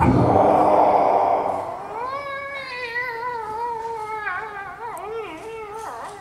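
A man imitating a dog: a long, drawn-out whining howl that rises about two seconds in and wavers up and down in pitch until near the end. It follows a loud rough noise that fades over the first two seconds.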